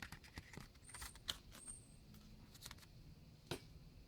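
Faint handling of Pokémon trading cards: light rustles and small clicks, with a sharper tick about a second in and another about three and a half seconds in.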